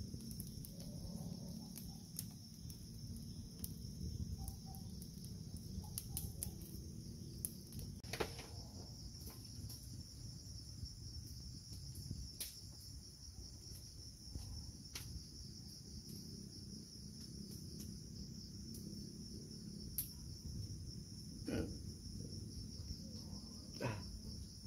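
Steady high-pitched chorus of crickets and other night insects, with scattered faint clicks.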